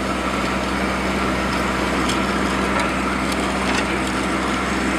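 An engine running steadily at idle with a constant low hum, with a few faint ticks.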